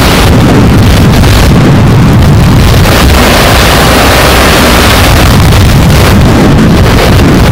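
Strong wind buffeting the microphone, loud and steady.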